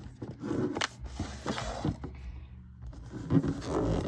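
Cardboard box set being handled and opened: a run of scrapes, rustles and small knocks.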